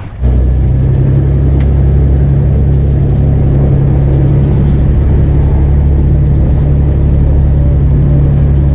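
Steady low drone of a vehicle engine running at constant speed, with no change in pitch.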